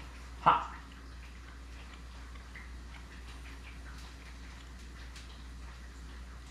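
Quiet eating sounds while tempura-battered fish is tasted: one sharp knock about half a second in, then faint scattered small clicks over a low steady hum.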